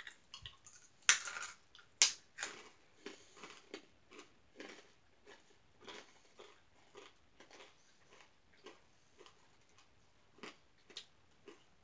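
Crunchy Japanese peanuts being chewed close to the microphone: two loud crunches about a second apart as they are bitten, then a steady run of smaller crunches about two a second.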